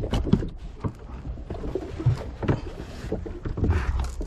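Irregular knocks and thumps aboard a small fibreglass fishing boat at sea, over a low rumble.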